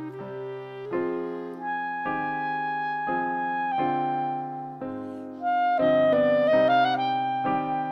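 Clarinet and piano playing a slow melody together, long held notes over changing piano chords. About five and a half seconds in comes a quick flourish of running notes, the loudest moment.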